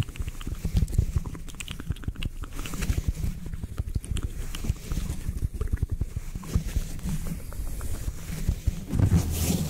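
A foam sponge rubbed and pressed against a microphone's metal mesh grille, heard very close up as irregular crackly scratching with many low bumps from handling. Near the end the low rumble grows louder.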